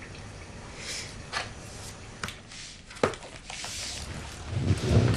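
Handling noises of a person shifting on a leather sofa: a few soft clicks and rustles, then louder low bumps and shuffling near the end as she starts to get up.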